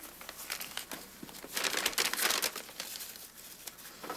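Paper crinkling and rustling as it is handled, loudest for about a second around two seconds in.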